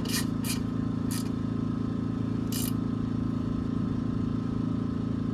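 A few short scrapes and clinks of hand tools as a fastener is tightened on a dirt bike engine, over a steady mechanical hum.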